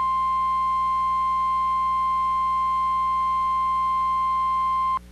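Emergency alert attention tone: the National Weather Service's single steady 1050 Hz warning alarm tone, signalling that a warning message follows. It is one high, unwavering tone that cuts off abruptly just before the end.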